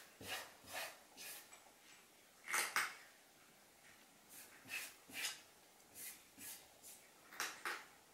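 A ginger tabby cat's paw scratching at a wooden door panel in short scraping strokes, about two a second, the loudest a little over two and a half seconds in. This is the pawing a cat does to bury food it has rejected, which the owner takes for the cat having gone off its food.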